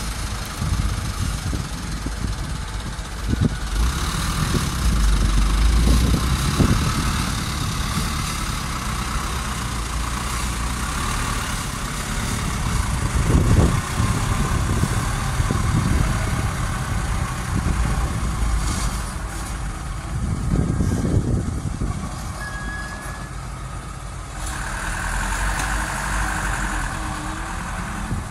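Diesel engine of a light dump truck running as it manoeuvres, swelling louder several times as it is revved, with other heavy diesel machinery running alongside.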